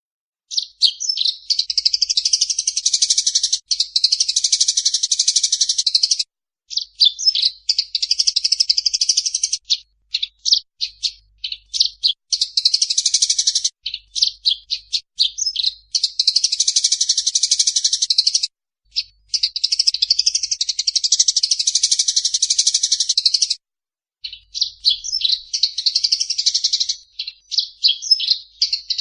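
Eurasian tree sparrows giving fast, excited fighting chatter: dense runs of high chirps in bouts of several seconds separated by short breaks.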